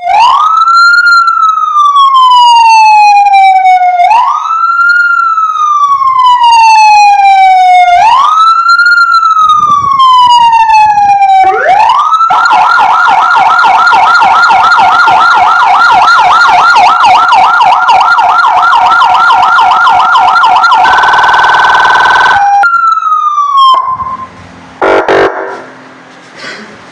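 Electronic police siren on a light bar fitted to a Proton Persona, being tested. It makes three slow wails, each rising and falling over about four seconds, then a fast yelp for about eight seconds, then a brief steady buzzing tone and a short falling tone before it cuts off. A few faint knocks follow near the end.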